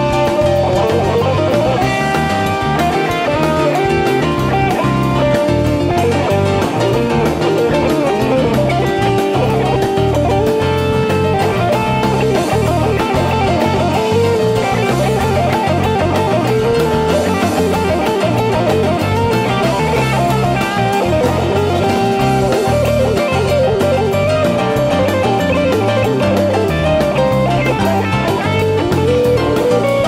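Rock band playing live in an instrumental jam, with electric guitar lines leading over bass and drums and no vocals.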